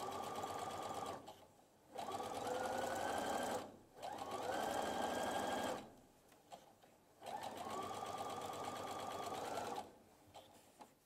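Electric domestic sewing machine stitching along bias binding in four short runs with pauses between. Each run after the first starts with a rising whine as the motor speeds up, then holds a steady pitch.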